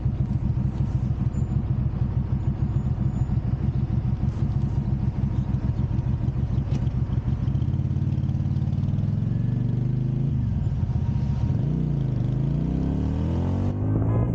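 Benda BD300-15 motorcycle engine idling with an even pulsing beat, then revving as the bike pulls away over the last few seconds, its pitch dipping and rising.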